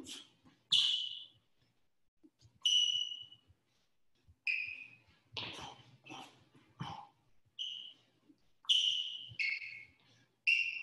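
Athletic sneakers squeaking on a hardwood floor during shadow-boxing footwork: about eleven short, high squeaks at an irregular pace, some with a light footfall thud.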